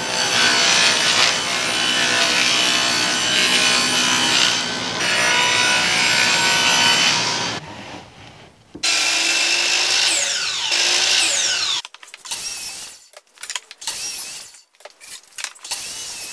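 Table saw ripping half-inch Baltic birch plywood, the blade cutting steadily for about seven seconds. Then a DeWalt 12-inch miter saw crosscuts a plywood strip, its blade pitch falling as it slows, followed by a run of short, separate bursts of noise.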